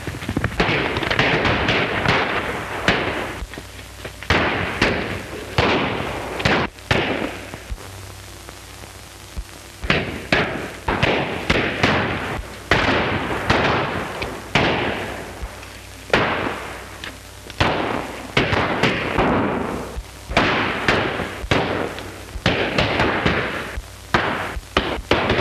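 Gunfire in a gunfight: about twenty shots fired irregularly, roughly a second apart, each followed by a long echoing decay, with a short lull about a third of the way through.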